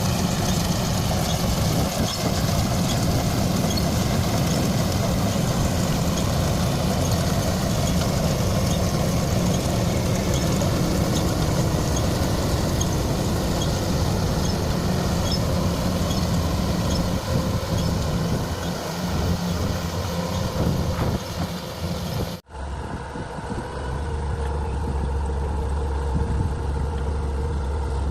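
Heavy diesel machinery engine running steadily. About 22 seconds in it cuts off abruptly, and a lower, steadier engine hum follows.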